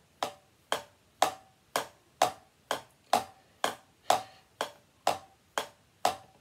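Drumsticks tapping a drum practice pad in an even beat of about two strokes a second, each a sharp tap with a short ring.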